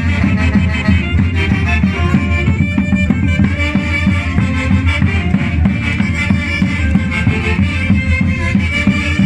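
Recorded band music with a strong, pulsing bass and melodic instrument lines, playing at a steady loudness.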